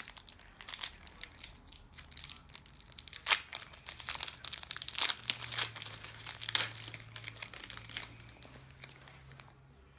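A trading-card pack wrapper being torn open and crinkled by hand, an irregular run of crackles and sharp crinkles that dies away near the end.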